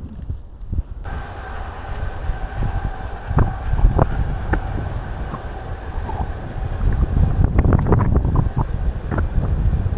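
Strong wind buffeting the microphone in low rumbling gusts, with scattered rattles and clicks. A steady high whine joins about a second in and fades out around seven seconds.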